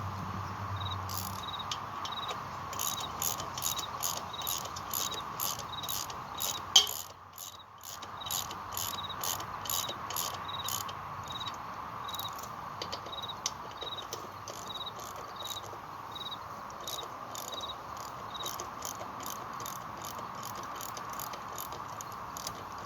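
A cricket chirping steadily, about two high chirps a second, over a steady hum. A run of rapid clicks sounds over roughly the first half, with one sharp knock about seven seconds in.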